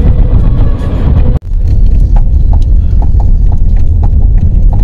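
Car driving on the road, heard from inside the cabin: a loud, steady low rumble of road and engine noise with scattered light clicks. The sound cuts out for an instant about a second and a half in.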